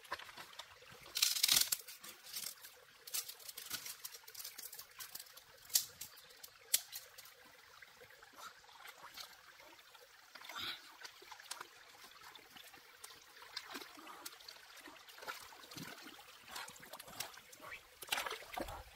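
Water trickling and splashing, with irregular small clicks and knocks throughout; the loudest splash comes about a second and a half in.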